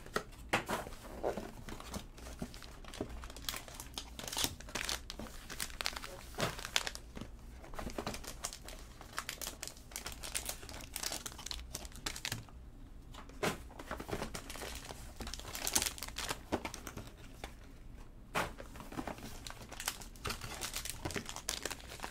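Foil trading-card pack wrappers crinkling and cardboard card boxes being opened and handled: a run of irregular crackles and taps.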